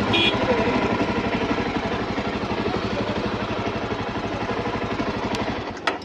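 Motorcycle engine idling steadily, then shut off near the end with a short click as it stops.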